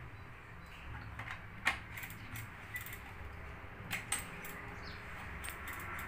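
Light plastic clicks and knocks as the rotary selector knob and the white plastic control-panel fascia of a Samsung washing machine are handled and the knob is pressed onto the panel. A few sharp clicks are spread through it, the loudest about a second and a half in and a close pair about four seconds in, over a low steady hum.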